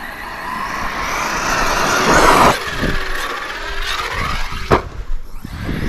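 Brushless motor of an Arrma Kraton 6S RC truck whining as it speeds up and passes, rising in pitch and loudest about two seconds in, then falling away. A few sharp knocks follow, the loudest near the end.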